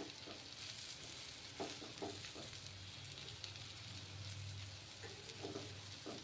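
Grated-potato pancakes shallow-frying in oil in a pan on their second side: a faint, steady sizzle with fine crackling. A few light taps of the metal spatula against the pan come about a third of the way in and again near the end.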